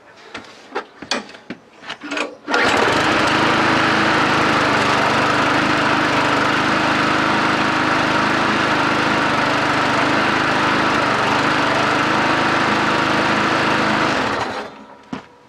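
Hayter petrol lawnmower engine started without priming: after a few light knocks it catches suddenly about two and a half seconds in, runs steadily at an even speed for about eleven seconds, then winds down and stops near the end. Its stuck carburettor diaphragm has freed up enough for it to start.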